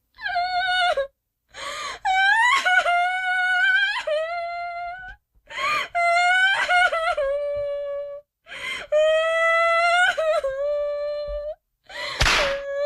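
A girl crying hard: about five long, high wailing cries, each drawn out for a second or more, wavering and breaking off, with sharp gasping breaths between them. A loud, sharp breathy burst comes near the end.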